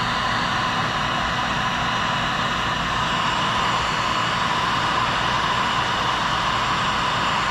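Electric heat gun blowing steadily, a constant whoosh of fan and hot air, heating a solder-seal wire connector to melt its solder ring and shrink its sleeve.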